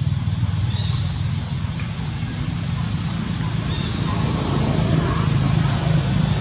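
Steady outdoor background noise: a constant low rumble with an even high hiss above it, and no distinct calls or knocks.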